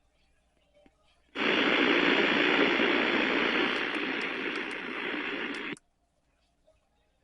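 Burst of static hiss from a weather radio receiver, about four seconds long, starting suddenly, fading a little and then cutting off.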